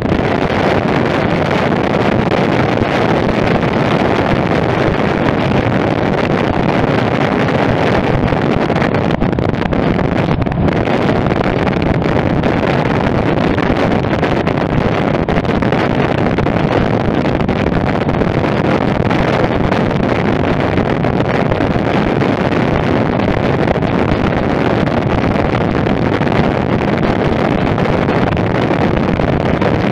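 Steady wind rush on the microphone of a Royal Enfield Meteor 350 motorcycle moving at road speed, with the bike's running and road noise blended in as an even, unbroken roar.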